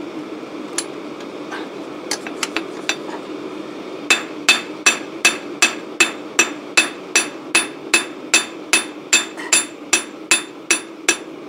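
Ball-pein hammer striking a small piece of hot spanner steel held in tongs on a makeshift steel-block anvil. A few light taps come first, then a steady run of about twenty ringing blows, between two and three a second, as the end is forged into a small spoon.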